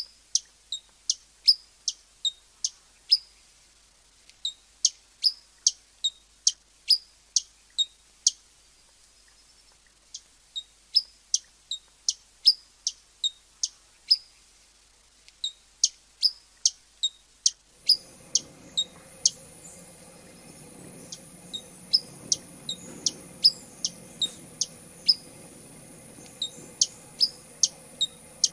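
Hummingbird giving sharp, high chip calls, about two or three a second, in runs broken by short pauses. Partway through, a faint steady background hiss and hum come in under the calls.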